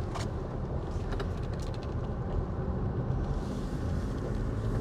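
Car driving on wet streets: a steady low rumble of engine and road noise, with a few light clicks and knocks in the first couple of seconds and a hiss that comes in about three seconds in.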